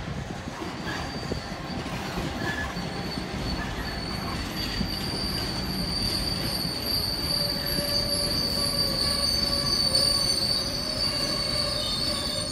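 Class 66 diesel locomotive and a long train of tank-container freight wagons rolling past, a steady rumble of wheels on rail. A high steady squeal from the wagons sets in about four seconds in and holds.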